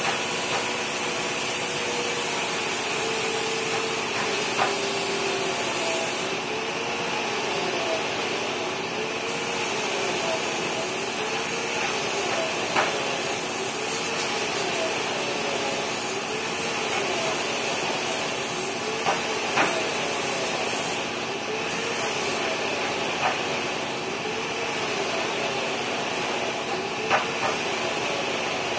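Compressed-air spray gun hissing steadily as it sprays finish, with a tone that rises and falls about every second and a half. There are a few sharp clicks along the way.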